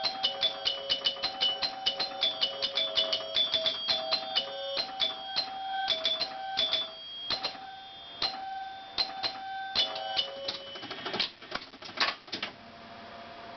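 1975 Bally Wizard electromechanical pinball machine going off as an alarm clock. Its chimes ring over rapid clicking from relays and score reels, several strikes a second at first, then thinning out. The clatter stops about twelve seconds in, leaving a steady hum.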